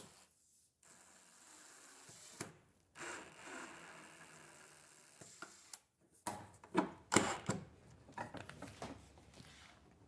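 Cordless drill/driver driving a screw back into a plywood cabinet frame, its motor running in two short spells. In the second half comes a run of irregular wooden knocks and clicks.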